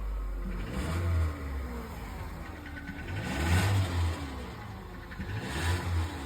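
Nissan Qashqai engine, which has a knock, revved three times from idle, each blip rising and then falling back.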